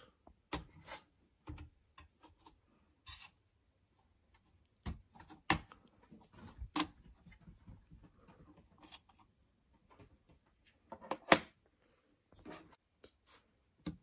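Scattered small clicks and knocks of fingers working the plastic retention tabs of a desktop computer's RAM slots and handling the memory modules. One sharper click comes about three-quarters of the way through.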